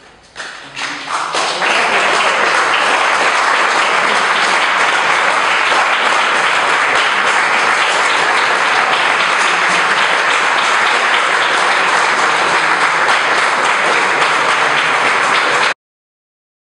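Audience applauding: a few scattered claps swell within about two seconds into full, steady applause, which cuts off suddenly near the end.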